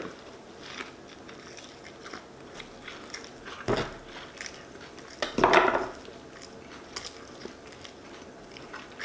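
Close-up mouth sounds of a person biting and chewing a shrimp po' boy sandwich: small wet clicks and crunches, with a sharper bite a little after three and a half seconds and a louder burst about five and a half seconds in.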